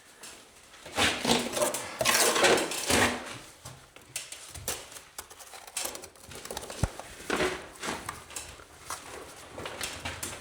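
Scraping and clinking of masonry work, hard tools and stone against stone and mortar. It comes in bursts about a second in and again around seven seconds in, with one sharp click between them.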